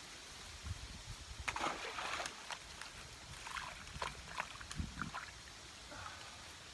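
Irregular small splashes, sloshes and handling clicks as a just-landed bass is handled at the water's edge, clustered in the middle of the stretch.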